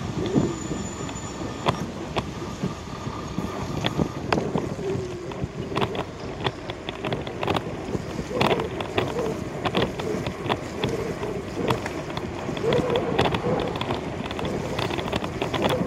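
Wind rushing over the microphone of a camera riding on a moving bicycle, over street traffic noise from nearby cars, with frequent irregular clicks and knocks as the bike rolls over the road surface.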